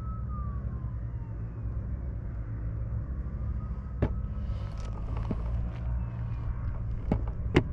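Off-road race vehicles' engines rumbling steadily, with a race siren wailing faintly over them, a high tone that holds and then falls away, twice. The siren comes from a faster UTV warning a slower class 8 truck ahead that it wants to pass. A few sharp clicks land about four and seven seconds in.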